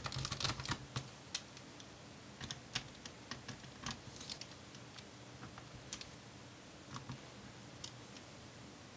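Precision screwdriver driving small screws into a MacBook Pro logic board: a quick run of light clicks in the first second, then scattered single clicks and ticks.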